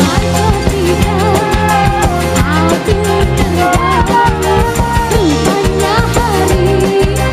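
Live dangdut band playing loudly with a steady beat, guitars and drums, and a woman singing the melody over it through the PA.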